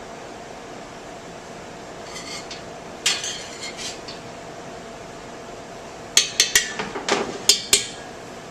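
Metal serving utensils clinking and clattering against dishes as food is plated: a few light clatters, then a quick run of sharp clinks near the end.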